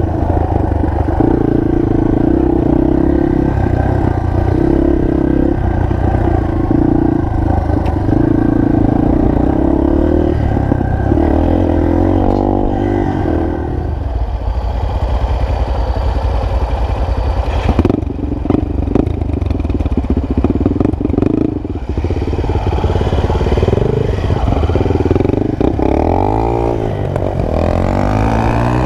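Single-cylinder four-stroke enduro motorcycle engine running under way, steady for the first half, then changing pitch with rises and falls near the end as the throttle is worked.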